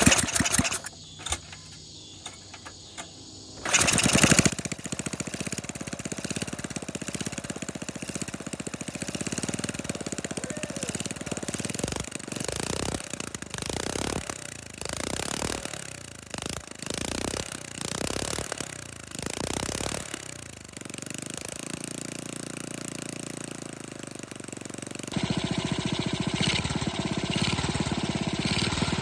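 A flathead Briggs & Stratton single-cylinder small engine catching after a few sharp cranking sounds, then running unevenly with its speed rising and falling. This is its first run after sitting unused for a long time.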